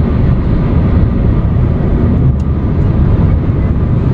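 Steady road and wind noise inside a moving car's cabin: a continuous low rumble.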